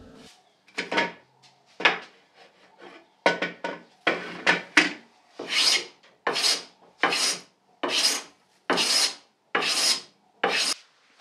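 A hand tool cutting wood in repeated rasping strokes, a few irregular ones at first, then a steady rhythm of about one and a half strokes a second, as the leg blanks are worked down to size.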